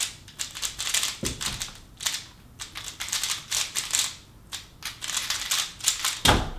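Plastic 3x3 speedcubes being turned fast during a timed race solve: a dense, rapid clatter of clicks in uneven bursts. There is a heavier thud near the end.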